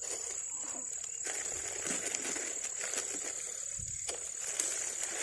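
Insects chirring in one steady high-pitched drone, with a rustling noise over it and a dull thump about four seconds in.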